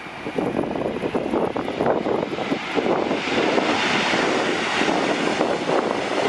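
Jet engines of a four-engined Boeing 747 freighter running loud as the jumbo rolls along the runway. It is a steady rushing noise that swells about three seconds in as the aircraft draws level.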